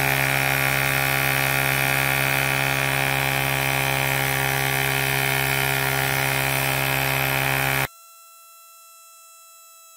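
Cordless portable tyre inflator's small motor-driven compressor running at full load as it pumps up a flat car tyre toward 36 psi, a loud steady buzzing hum with a hiss. About eight seconds in it cuts off abruptly, leaving only faint steady tones.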